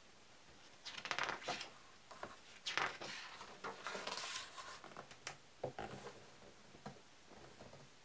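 A page of a large illustrated hardcover book being turned by hand: paper rustling and crinkling as the page is lifted, swept over and pressed flat, with a few light taps near the end.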